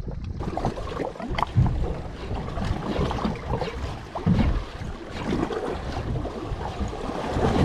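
Wind buffeting the microphone over choppy sea water slapping around a boat, with irregular low thumps.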